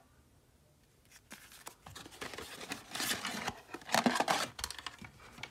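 Cardboard box and paper packaging being handled: irregular rustling and scraping that starts about a second in and is loudest in the middle and near the end.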